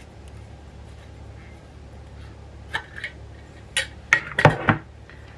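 A few sharp clicks and knocks, as of containers and dishes being handled, over a steady low hum. The knocks come from a little before the middle, bunched together near the end.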